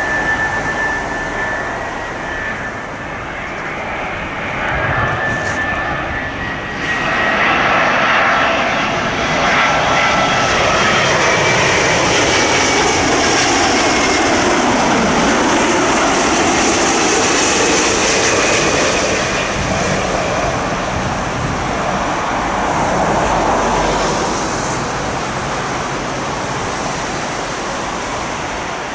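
Jet airliner on final approach, passing low with its engines whining and rumbling. It swells to its loudest about a third of the way in, then slowly fades.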